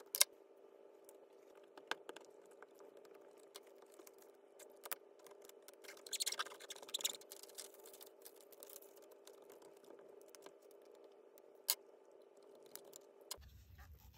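Scattered light clicks and taps of laptop chassis parts being handled, with a brief crinkling rustle about six to seven seconds in from the black plastic insulating sheet being peeled away, over a faint steady hum.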